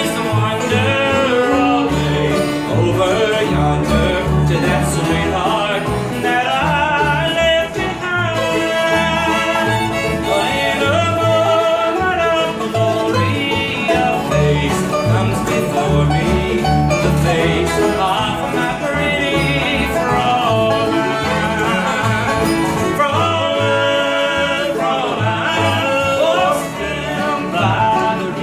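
Live country band playing, with plucked and bowed strings over a steady bass beat.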